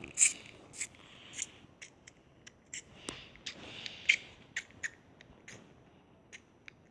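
Irregular sharp clicks and light taps, about three a second, with brief soft rustling near the middle, like small objects being handled.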